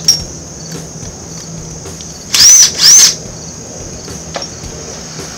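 Cordless impact wrench run in two short bursts about two seconds in, its motor whining up and back down each time as it loosens the truck's shock tower nuts. A sharp click comes just at the start, and crickets chirp steadily throughout.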